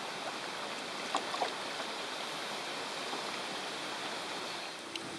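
River water running steadily over a shallow riffle, with a couple of faint ticks a little over a second in.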